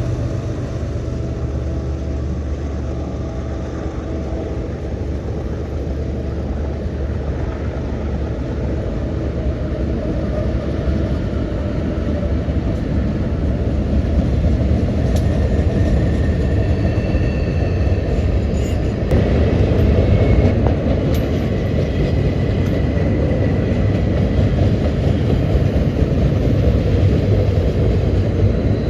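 Freight train rolling past with a steady low rumble of wheels on rail. Faint high-pitched wheel squeal comes and goes through the middle.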